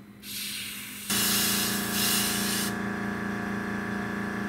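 Airbrush hissing as it sprays primer onto a scale-model propeller, the hiss stopping a little past halfway. About a second in, the air compressor's motor starts and runs with a steady hum.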